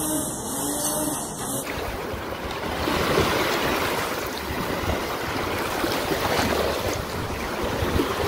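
Small waves breaking and washing over shallow water at the shoreline as a steady surging hiss, with wind rumbling on the microphone. For about the first second and a half a brief wavering whine is heard before the surf takes over.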